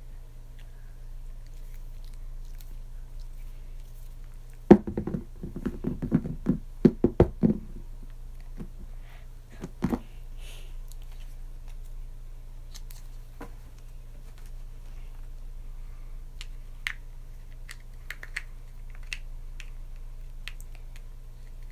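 A putty container being worked open by hand: a quick run of knocks and thuds about five seconds in, a couple more near the ten-second mark, then scattered light clicks and crackles of handling.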